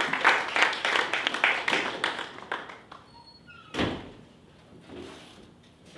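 Audience applause that fades out over the first three seconds, then a single loud thump about four seconds in, with a few faint high squeaks.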